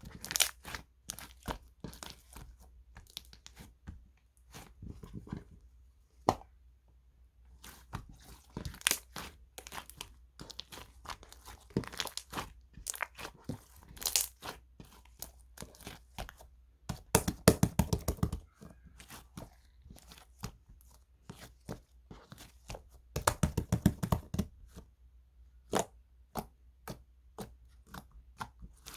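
Slime being squeezed and stretched by hand, with a continual run of sharp, wet clicks and pops. Twice the clicks come in dense, rapid runs.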